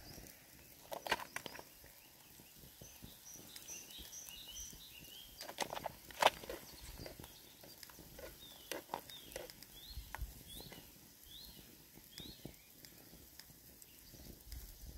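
A utensil knocking and scraping in a metal mess tin as egg is scooped out, a scatter of sharp clicks with the loudest about six seconds in. Small birds chirp in the background, in two runs of short notes.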